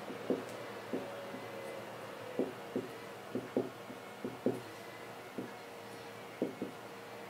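Dry-erase marker writing on a whiteboard: about a dozen short, irregular taps and strokes of the tip against the board, over a faint steady hum.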